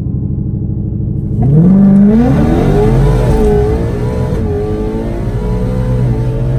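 Mustang's Whipple-supercharged Coyote V8 running low and steady, then revving up about a second and a half in and holding at a higher engine speed that wavers up and down.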